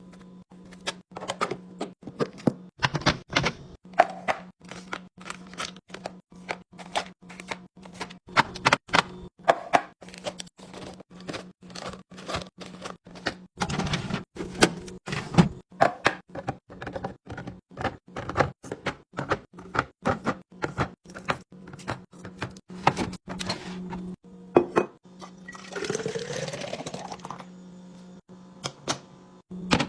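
Restocking sounds: a long run of sharp clicks and knocks as containers, lids and packages are handled and set down, over a steady low hum. About 26 seconds in, liquid is poured into a container for a second or two, its pitch rising as it fills.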